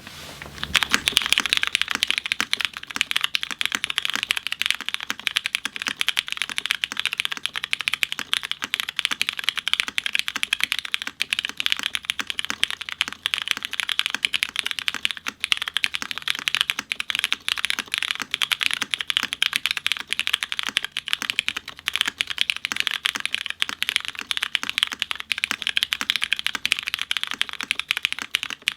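Fast, continuous typing on a Notfromsam S80 V2 custom mechanical keyboard, top-mounted with a polypropylene plate and no foam. It has lubed and filmed vintage Cherry MX Brown tactile switches and GMK keycaps. The typing starts within the first second and goes on without pause as a dense stream of key clacks.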